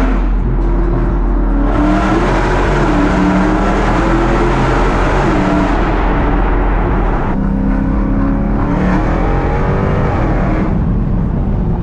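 Car engine under hard acceleration, its pitch climbing, dropping at a gear change about seven seconds in, then climbing again, with a rushing noise over it for a few seconds early in the pull.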